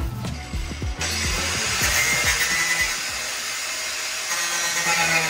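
A power tool running loudly and steadily, starting abruptly about a second in, over background music with a beat.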